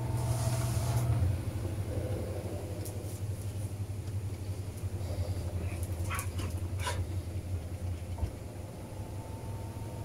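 Panasonic 16 kg top-load washing machine in its spin cycle, a steady low hum from the spinning drum. A few short sharp clicks come about six to seven seconds in, as a dog jumps up beside the machine.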